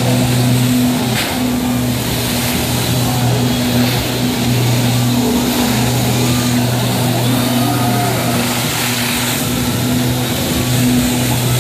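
Engine of the personal watercraft that powers a flyboard, running steadily with a low drone that dips briefly a few times, over the constant rushing hiss of the board's water jets and spray.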